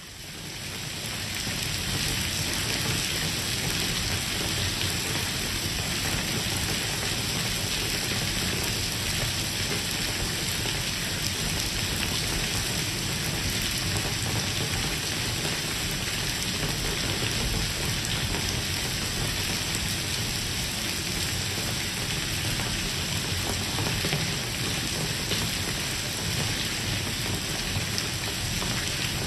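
Heavy rain pouring onto stone paving and streaming water, a dense steady wash of sound that fades in over the first second or two.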